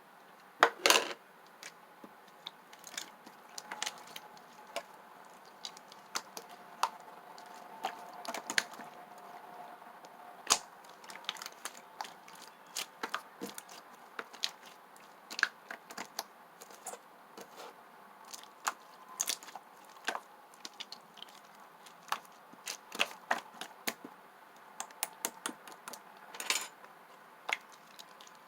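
Slime being played with, making irregular sharp clicks and small pops, several a second at its busiest.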